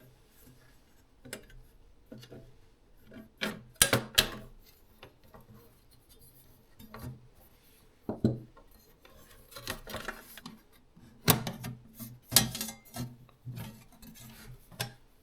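Irregular clicks, knocks and rubbing as a T10 Torx screwdriver works on the metal casing of a car radio head unit, louder knocks around four seconds in and again towards the end.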